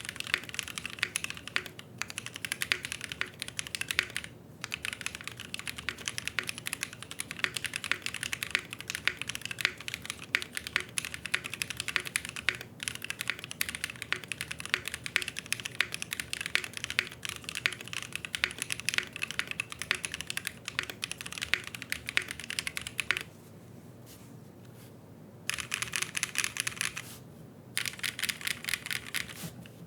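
Typing on an RE65 aluminium gasket-mount mechanical keyboard with lubed Kailh Cream linear switches and GMK keycaps: fast, continuous keystrokes. The typing stops for about two seconds roughly three-quarters of the way through, then resumes in two short runs.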